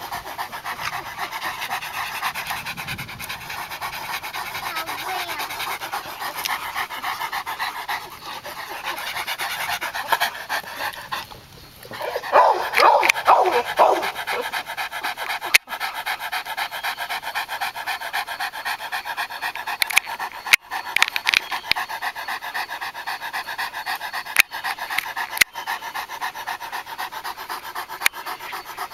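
Male Tosa Inu panting fast and hard, open-mouthed, during a mating tie. A brief louder sound breaks in about twelve seconds in.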